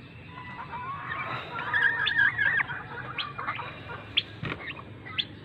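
Broody hen sitting on eggs in a straw nest, giving a wavering, warbling call for about a second and a half, with scattered short clicks around it.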